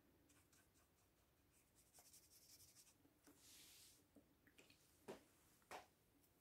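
Near silence with faint scratching of a watercolour brush on paper, then a brief soft hiss and two light clicks about five seconds in.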